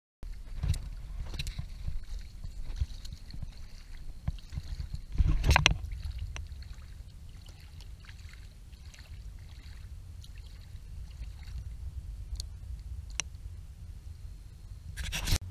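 Water lapping and knocking against a paddleboard, picked up by a camera mounted on its deck, over a low rumble with scattered clicks and knocks. There is a louder rush about five seconds in and another just before the end.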